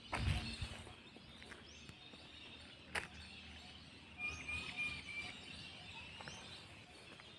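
Quiet outdoor ambience. A bird gives a short run of high, thin chirps about four to five seconds in. A low thump comes right at the start and a single sharp click about three seconds in.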